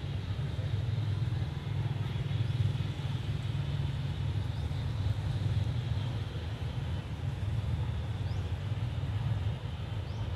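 Steady low outdoor rumble with a faint hiss over it, with no distinct events.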